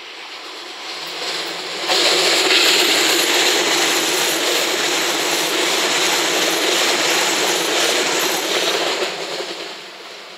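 JR West 227 series electric multiple unit, four cars, passing close by: its running noise builds, jumps to full loudness about two seconds in as the cars go by, then fades near the end as the train pulls away.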